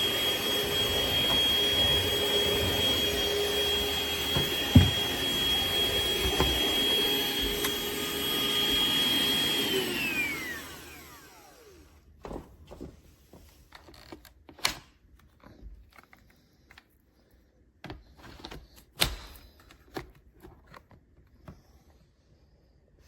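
Hoover ONEPWR Evolve Pet Elite cordless stick vacuum running with a steady high whine, then switched off about ten seconds in, its motor whine falling in pitch as it winds down. Scattered clicks and knocks follow.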